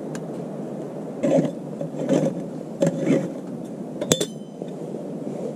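Stainless-steel stovetop moka pot being put together: a few rough metal scrapes as the parts are fitted, then a sharp clink with a short ring about four seconds in, over a steady low hum.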